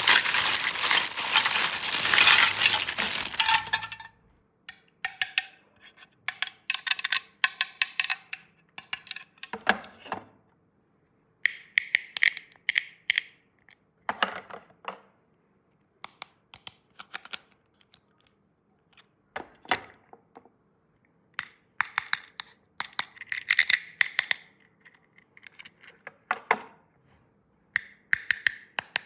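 Plastic packaging crinkling for the first few seconds, then small plastic toy pieces being handled, making clusters of sharp clicks, taps and light clinks with gaps between them.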